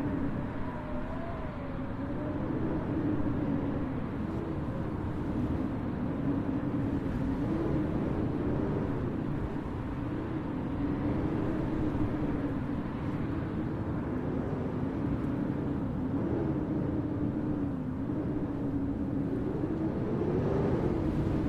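Blizzard wind howling: a steady rush with a low moaning tone that slowly wavers up and down in pitch.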